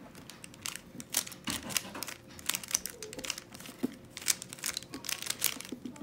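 Stickerless plastic 3x3 Rubik's cube turned by hand through a corner-orienting algorithm: an irregular run of sharp clicks and rattles as the layers snap round.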